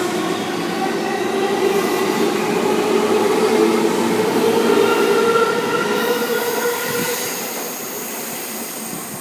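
JR 205-series electric train pulling out, its traction motors whining in a rising pitch as it gathers speed and fading as it moves away. A thin high-pitched wheel squeal comes in over the last few seconds.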